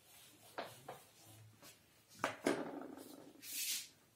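Handling sounds at a whiteboard: a duster rubbing the board and a few light knocks as it is set down and a marker taken up, with a short hissing rub near the end.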